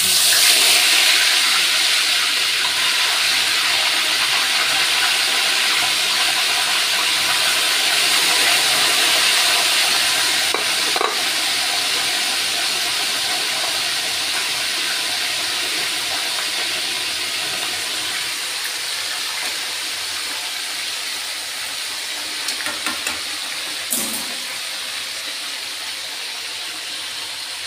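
Marinated fish dropped into a wok of hot cooking oil: the oil bursts into a loud sizzle at once and keeps frying steadily, slowly growing quieter. A couple of light knocks of tongs against the wok, near the middle and near the end.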